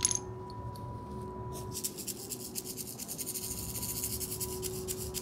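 A singing bowl rings with two steady tones, one low and one higher, after a short click. About one and a half seconds in, a small hand-held rattle starts being shaken fast above it, making a dry, high, rapidly repeating shimmer.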